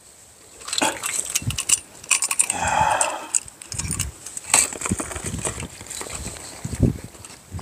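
Metal grabbing tongs clicking as crabs are picked off the seaweed-covered rocks and dropped into a bucket of crabs. Irregular sharp clicks and clatters, with a louder noisy burst about three seconds in and a few dull thumps later.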